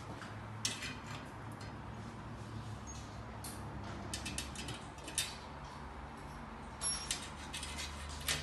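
Scattered clicks, taps and scrapes of hands handling a sheet-metal air-conditioner mounting plate against the wall, over a steady low hum.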